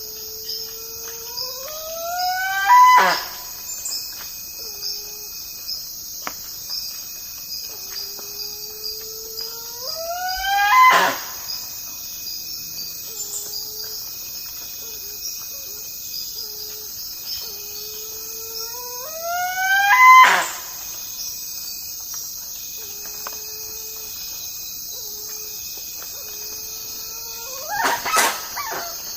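Spix's guan calling three times: each call is a series of notes climbing steadily in pitch that ends in a loud, harsh cry, with another loud cry near the end. Insects chirp steadily and high underneath.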